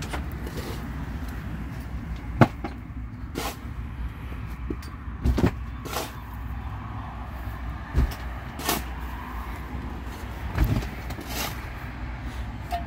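A spade scraping into a pile of earth and tipping it into an open grave, the soil landing on the casket below: a series of short knocks and scrapes, one every second or two.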